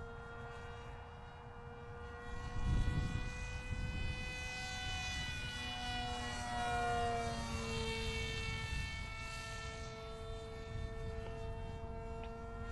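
Electric motor and propeller of a small cardboard RC plane whining in flight, its pitch shifting up and down around the middle as it manoeuvres past. A low wind rumble on the microphone about three seconds in.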